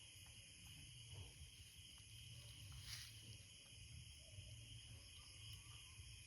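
Faint night insect chorus of crickets, a steady high-pitched trilling, over a low rumble, with one short click about three seconds in.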